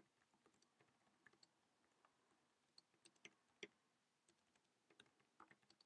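Faint, irregular keystrokes of a computer keyboard being typed on, with the loudest click about three and a half seconds in.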